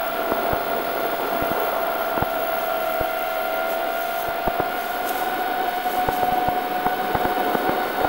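QAV210 racing quadcopter's four brushless motors (RCX H2205 2633KV) spinning DAL 5045 tri-blade props in flight: a steady whine with a rushing hiss and light crackle, heard up close on the craft. The whine edges slightly higher in pitch and grows busier in the second half as the throttle comes up a little.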